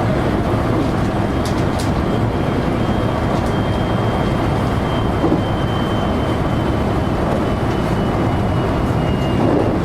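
JR electric local train running between stations, heard from inside the car: a steady rumble of wheels on rail, a few clicks of wheels over rail joints about a second and a half in, and a faint high whine that slowly drops in pitch.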